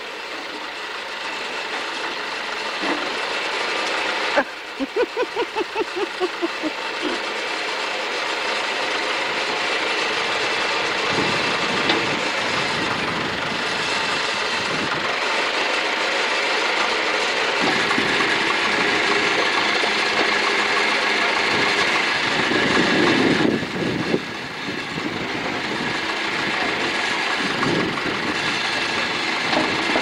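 A backhoe's engine running steadily as the boom and bucket dig. A few seconds in there is a short run of quick, even knocks, about four a second.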